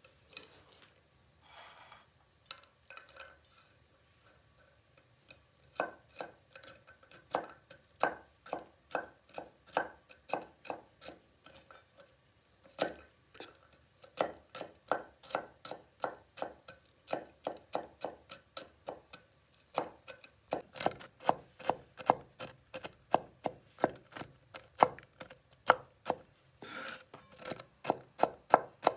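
Kitchen knife chopping walnuts on a wooden cutting board: a few light taps at first, then from about six seconds in a steady run of sharp knocks, about three a second, with a couple of brief pauses.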